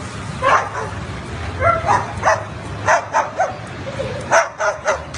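A string of short, high yapping barks, roughly two a second, over a steady low hum.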